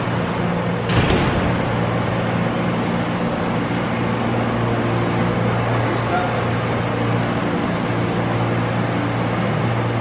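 Steady machine hum with a rushing noise, like a large running fan or motor, even throughout; a single sharp knock about a second in.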